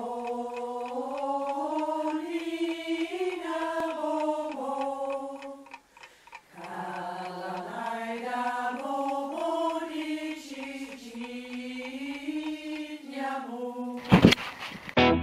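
Chanted singing: long held vocal notes moving slowly up and down in pitch, with a short break about six seconds in and a faint steady ticking underneath. Near the end comes a sudden short burst of loud knocks.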